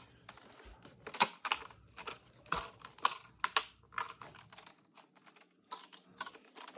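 Irregular sharp clicks and taps of the plastic top-case bezel of a 2009 white MacBook being pressed and snapped down onto the computer's body, a few clicks a second.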